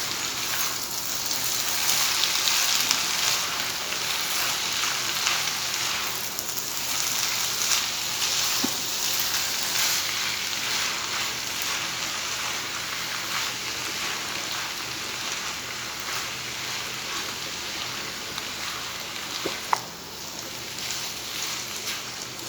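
Chicken and vegetable spring-roll filling sizzling in a hot pan as it is stirred and mixed, a steady frying hiss with light scraping. A short sharp knock near the end.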